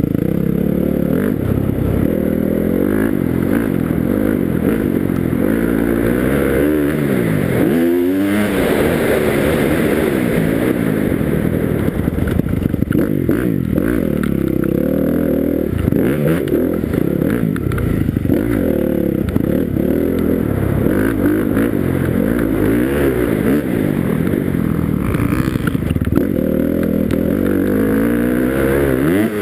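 Motocross dirt bike engine heard up close from a helmet-mounted camera, revving up and dropping back again and again as the rider accelerates, shifts and backs off around the track.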